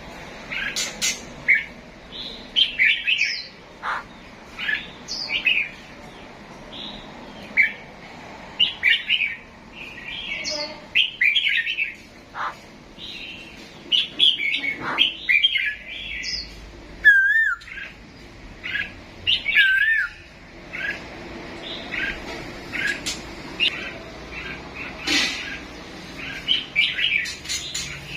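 Pet songbirds chirping and twittering in quick, frequent bursts, with two clear wavering whistles a little past the middle.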